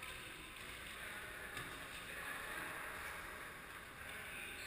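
Ambience of an indoor futsal game: a steady noisy wash of play on the court, with a faint knock about one and a half seconds in.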